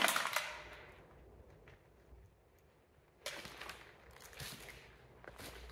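Footsteps crunching and scuffing through litter and debris on a concrete floor: a loud crunch right at the start, then quiet, then a few more scuffing steps from about three seconds in.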